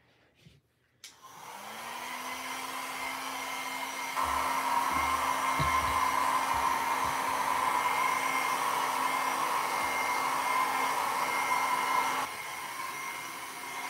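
A handheld hair dryer is switched on about a second in, its motor spinning up to a steady whir with a rush of air. It gets louder about four seconds in and eases off slightly near the end.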